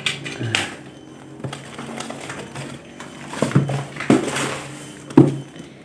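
Cardboard box wrapped in plastic film being handled and shifted on a tiled floor: scattered knocks and crinkles about a second apart, the loudest near the end.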